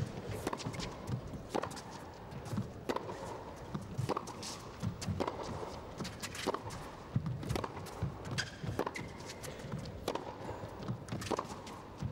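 Tennis rally on a carpet court: racket strikes on the ball and its bounces, a sharp knock roughly every second, coming back and forth.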